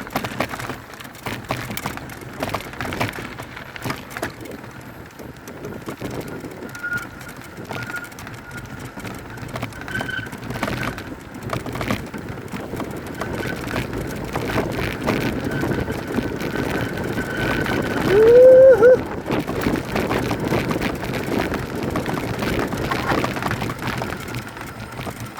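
Mountain bike rattling and clattering as it rolls down a rough trail, with tyre and frame noise full of small knocks and a faint thin whine through the middle. About three-quarters of the way through comes a short, loud squeal that rises and wavers.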